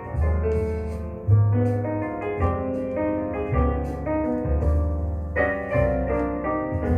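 Recorded piano music played back through a single-ended amplifier and loudspeakers, with a series of notes over low, sustained bass notes.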